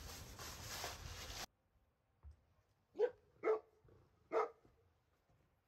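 Golden retriever barking three times: short single barks, the first two close together and the third a second later.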